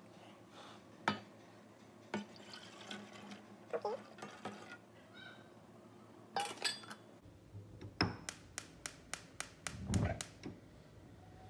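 Milk poured from one steel saucepan into another, with light clinks of the pans. About eight seconds in, a gas hob's igniter clicks rapidly, about four times a second for two to three seconds, and the burner catches with a low rush.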